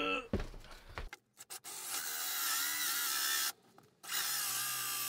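Power drill spinning a hole saw, cutting the drain hole through the van floor: a steady high-pitched whine in two runs, with a short pause after about three and a half seconds. A few knocks and clicks come first as the saw is set in place.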